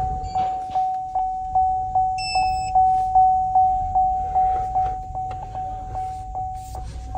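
GMC truck's dashboard warning chime, one ringing tone repeating about two to three times a second, each strike fading before the next. A short, higher electronic beep sounds once about two seconds in.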